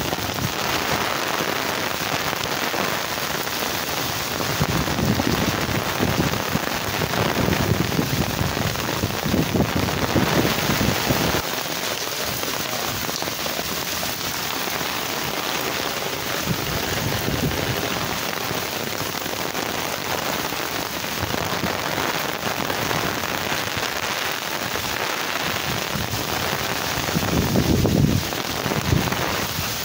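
Heavy cyclone rain pouring down in a steady, dense hiss, with low gusts of wind buffeting the microphone now and then, strongest about a third of the way in and near the end.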